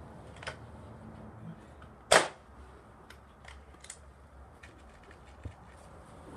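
A single sharp shot from a Remington Tyrant .22 air rifle about two seconds in, with a short echo after it, among a few faint clicks.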